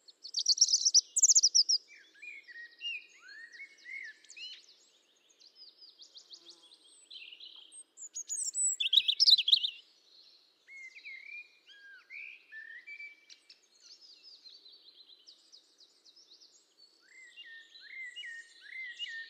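Songbirds chirping and singing: many short chirps, rapid trills and quick up-and-down whistled notes, loudest about a second in and again around nine seconds in.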